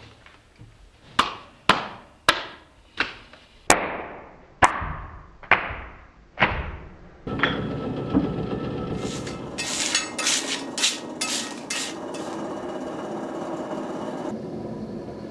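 Eight sharp strikes on something that rings, about one every three-quarters of a second, each ringing out and fading. About seven seconds in, this gives way to a dense run of overlapping ringing tones and quick light taps.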